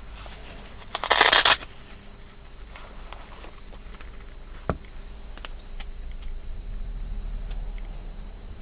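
Handling noise as a multitool is picked up and turned over: a short rustling scrape about a second in, then a sharp click near the middle and a few faint ticks.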